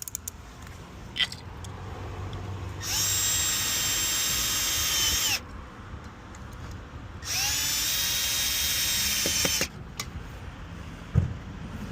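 Power drill running twice, about two and a half seconds each, winding up to a steady high whine and running down again, driving in the screws that fix a key safe to the wall. A few light clicks and a knock come between the runs.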